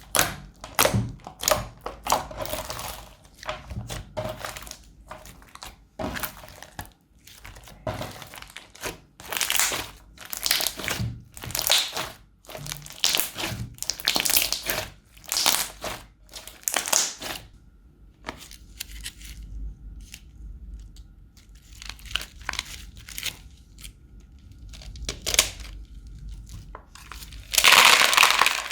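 Crunchy slime being squeezed and pressed by hand, crackling and popping in irregular bursts of up to a second each. The bursts are sparser in the middle, and the loudest crunching comes near the end.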